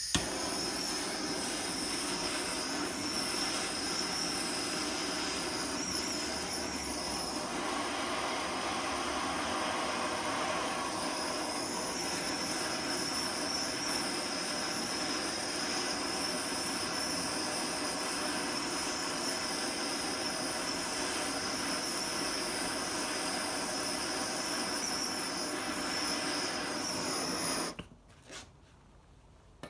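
Handheld gas torch burning steadily with a hiss and a faint high whistle as it heats the crankshaft's flywheel-side bearing sleeve to loosen it for removal. It cuts off suddenly near the end.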